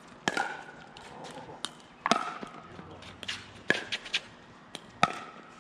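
Pickleball paddles striking a plastic pickleball in a rally: sharp hollow pops, four loud ones roughly every one and a half seconds, with fainter pops in between.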